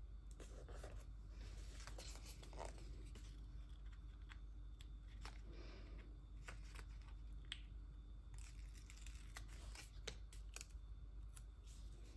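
Soft handling of a paper sticker sheet, with brief rustles and scattered small clicks as tweezers peel letter stickers off the sheet and press them onto a planner page.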